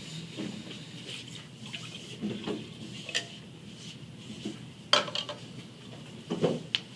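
Scattered clinks and knocks of cups and kitchen containers being handled and set down while ingredients are measured out, with a few sharper knocks near the middle and end.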